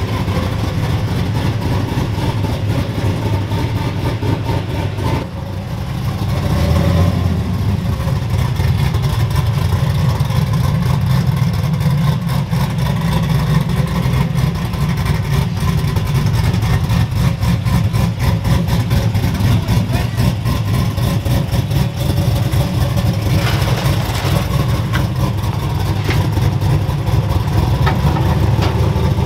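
Cammed engine of a lowered, air-bagged NNBS Chevy Silverado running as the truck drives past, a loud, deep, rapidly pulsing exhaust rumble that dips briefly about five seconds in.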